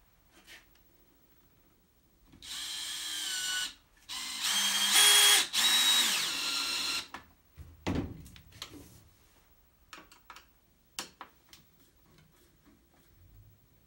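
Cordless drill working into a wooden post in two runs, about a second and then about three seconds, its motor whine shifting in pitch as it bites. A sharp knock follows, then a few light clicks as the mounted metal lever is handled.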